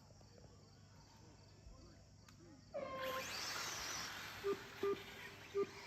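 Faint crickets at first. About three seconds in, race-track audio cuts in: a steady rushing hiss of electric RC short course trucks running, with a brief tone and then three short beeps from the track's timing system at the race start.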